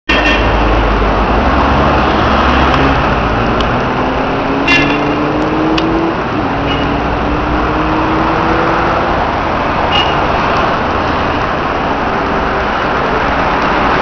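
Road traffic going by: a steady wash of car noise, with one engine climbing slowly in pitch as it speeds up, and a few short clicks.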